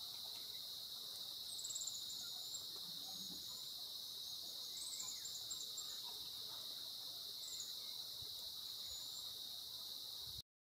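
Steady high-pitched insect drone, with short high bird chirps about five times; the sound cuts off just before the end.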